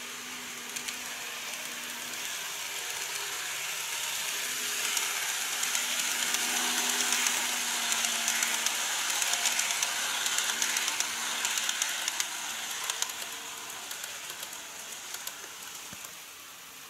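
Model train of a 115-series electric multiple unit running on plastic track: a steady motor whir and wheel hiss with rapid clicking over the rail joints. It grows louder as the train passes close, then fades away.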